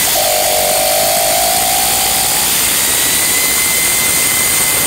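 Pneumatic air ratchet running continuously, spinning a loosened cylinder head bolt out of an LS3 V8: a loud, steady air hiss with a whine that fades out after about two and a half seconds.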